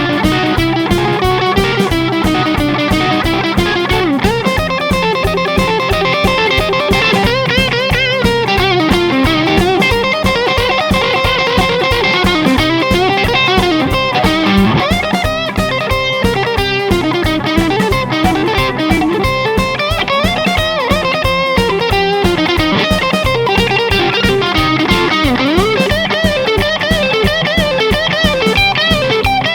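2007 Gibson Firebird electric guitar played through an amp and a miked speaker cabinet: a continuous lead line with many string bends.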